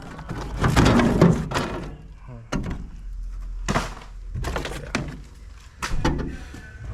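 Rotten transom plywood being broken and pulled out of an aluminium jon boat: about two seconds of crumbling, clattering wood, then several separate knocks and thunks.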